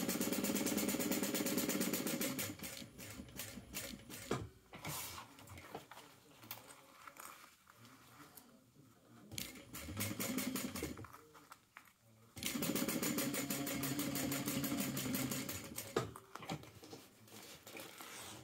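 Electric sewing machine stitching through layered vinyl, lining and zipper, running in rapid, even stitches: one run of about two and a half seconds at the start and another of about three and a half seconds about twelve seconds in, with a short slower burst and fabric handling in between.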